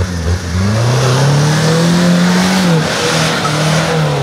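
Off-road pickup truck's engine revving under load as it climbs a muddy slope: the pitch climbs for about two seconds, falls off just under three seconds in, then picks up again.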